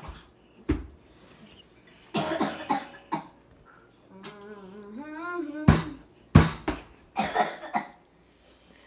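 A boy coughing and gagging after a mouthful of soy sauce: several harsh coughs, the loudest a little past the middle, with a drawn-out groan between them.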